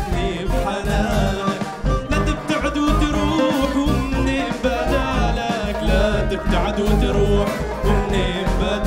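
A mixed band playing an Arabic song: a drum kit and a bass line from sousaphone and bass guitar under saxophones. A cane flute carries a wavering melody on top.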